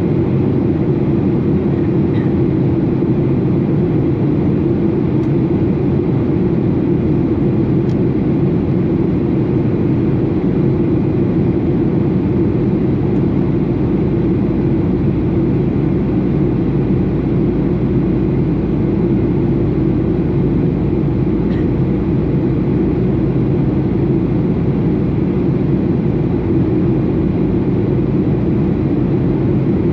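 Steady drone of a Boeing 737 airliner as heard inside the cabin: engine and airflow noise, low and unchanging in level.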